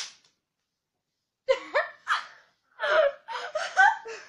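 Girls' voices: a short breathy gasp at the start, then loud laughter and shouted exclamations for the last three seconds or so.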